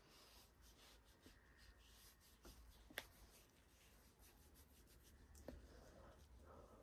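Faint rubbing and scratching of a cotton pad wiped over skin in short strokes, with a sharp click about three seconds in.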